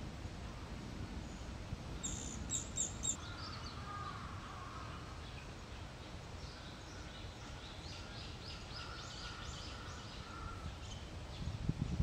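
Japanese pygmy woodpecker nestling on the point of fledging, calling from the nest hole: a quick run of short, high squeaky notes about two seconds in, then a longer run of them later. Lower, drawn-out bird calls come in between, over steady background noise.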